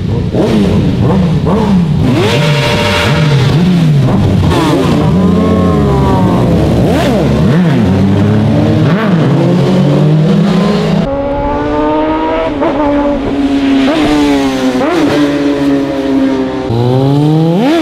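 Sport and naked motorcycle engines revving and accelerating past, their pitch repeatedly climbing and falling. The sound changes abruptly about two-thirds of the way through, and one engine revs up sharply at the end.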